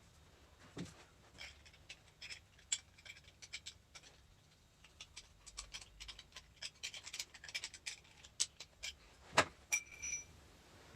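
Metal parts of a partly dismantled hydraulic directional control valve clicking and tapping as they are handled and probed, a scattered run of light ticks. Near the end one strike rings briefly with a clear metallic tone.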